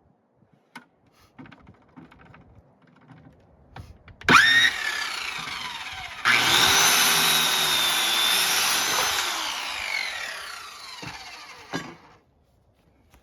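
Circular saw spinning up about four seconds in, then cutting through a wooden board for a few seconds, the loudest part, before the blade winds down and stops. A few light handling clicks come before it.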